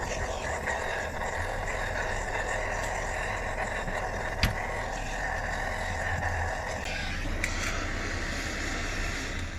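Gas torch flame giving a steady rushing hiss as it melts lead off a block to cast a new battery terminal, with one sharp knock about four and a half seconds in.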